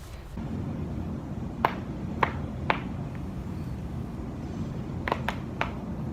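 Joints cracking during a chiropractic adjustment: three sharp pops about half a second apart, then three more in quicker succession near the end, over a steady low background hum.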